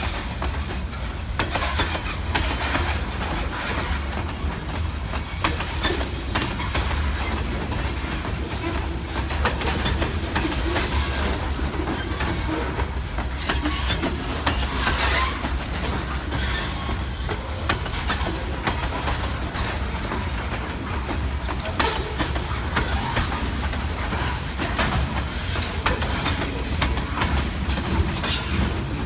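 Railroad freight cars rolling along the track under a shove, their wheels clacking over rail joints in an uneven run of clicks over a steady low rumble.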